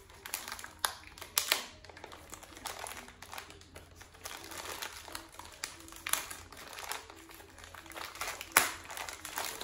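Biodegradable plastic mailer bag crinkling and rustling as it is tugged open by hand, with a few sharp crackles as the sealed top pulls apart.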